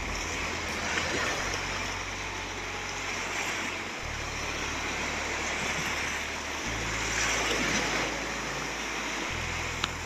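Small waves washing and breaking on a sandy beach, a steady hiss of surf. Low sustained music tones sit underneath, changing every few seconds, and there is one sharp click near the end.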